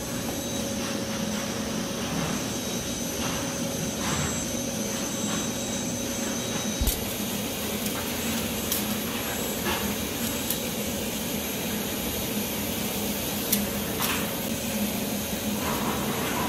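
A steady machine hum with a faint high whine that stops about halfway through, and a few light clicks and taps of small objects being handled.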